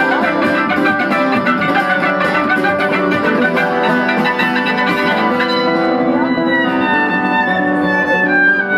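Violin and acoustic guitar playing a duet. A busy passage of quick notes gives way, about five and a half seconds in, to long held violin notes over the strummed guitar.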